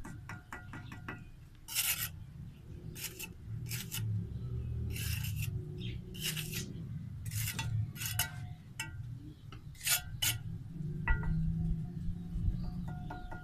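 Steel bricklaying trowel scraping mortar on bricks in a string of short rasping strokes. Quick ringing metallic taps come near the start and again near the end, as bricks are knocked into place.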